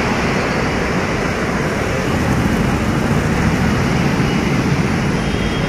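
Steady road traffic: the engines and tyres of passing vehicles make a constant low rumble and hiss.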